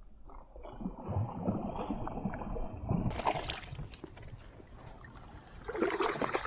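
Water splashing and sloshing beside a kayak, with knocks and rustling, as a hooked bass is fought to the boat; a louder burst comes near the end.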